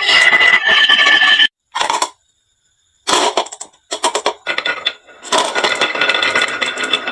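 Marbles rolling and clattering down a wooden marble run, with a dense run of scraping and rattling and sharp clicks as they knock against each other and the track. The sound cuts out twice near the start, then comes back as scattered clicks before a steady clatter resumes.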